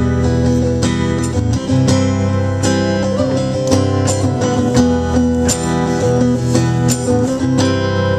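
Acoustic guitar strummed live, about two strums a second, moving through a chord progression: the instrumental introduction of a song.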